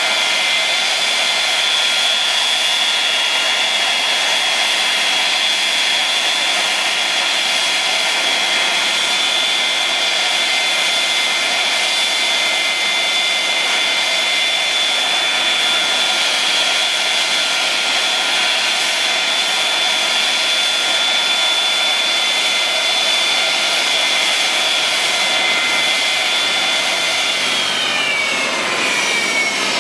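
Boeing 727's Pratt & Whitney JT8D jet engines idling with a steady high whine and rush of air. Near the end the whine starts falling in pitch as the engines are shut down and spool down.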